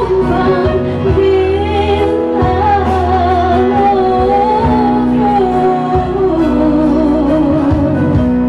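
A woman singing through a handheld microphone over backing music, holding long notes with a wavering vibrato and gliding down in pitch toward the end.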